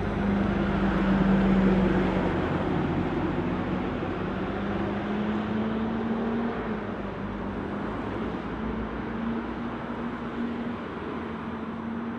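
Solaris city bus passing close by: a steady engine drone with tyre and road noise, loudest about a second or two in, then slowly fading as the bus drives away.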